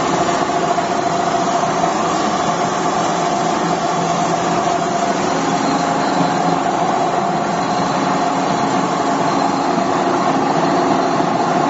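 Vertical ring die pellet mill running steadily while producing pellets, a constant mechanical hum with a strong steady tone.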